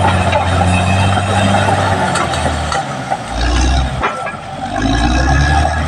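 Caterpillar D6R XL bulldozer's diesel engine running, its note dropping deeper about three seconds in, with a couple of sharp knocks.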